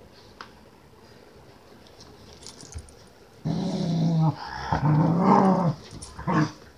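Keeshond play-growling: two drawn-out growls starting about halfway in, then a couple of short ones near the end.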